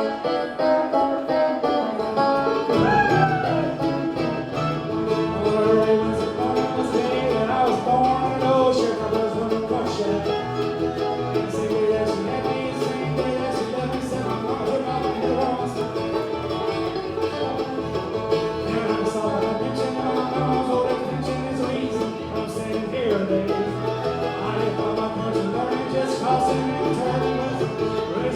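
Bluegrass band playing live, with banjo and guitar picking at a brisk tempo; bass notes join about three seconds in.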